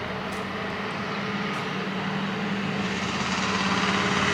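A motor or engine running steadily with a constant-pitched hum, getting gradually louder over the last couple of seconds.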